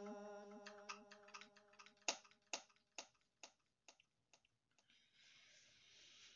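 The tail of a Quran reciter's long held note fading away, followed by a run of faint sharp clicks, at about two a second, that die out after a few seconds; then a faint hiss.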